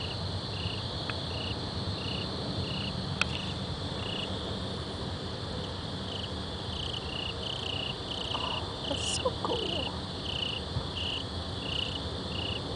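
A cricket chirping steadily, about two short chirps a second, over a steady low background noise.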